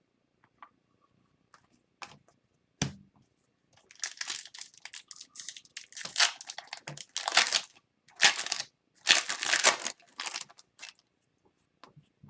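A hockey card pack's wrapper being torn open and crinkled, in irregular rustling bursts for several seconds, after a single knock about three seconds in.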